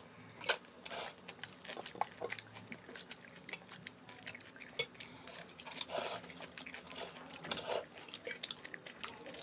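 Irregular soft clicks, taps and clinks of dishes and utensils, the sharpest about half a second in.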